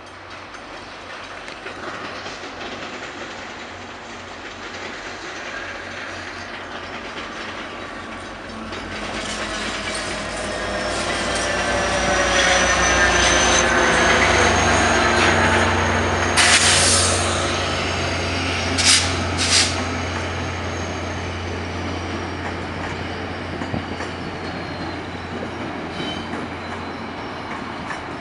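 VIA Rail passenger train passing: the diesel locomotive's engine hum and rumble build as it approaches and peak about halfway through. Then the stainless-steel Budd passenger cars roll by with steady wheel clatter and a thin, high wheel squeal that fades away. A few sharp clanks from the wheels on the track come a little past halfway.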